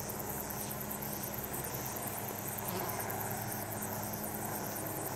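Insects chirping in a fast, high, even pulse, over a low steady hum.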